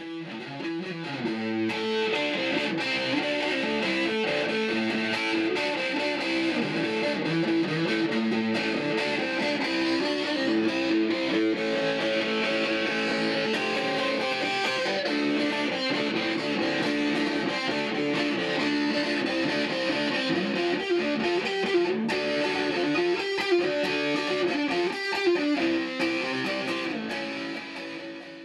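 Electric guitar music played with distortion, continuous and steady throughout.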